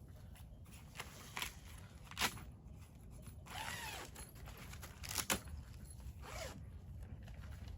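Scattered sharp clicks and knocks, with a short rasping, zip-like sound about three and a half seconds in and another near six and a half seconds.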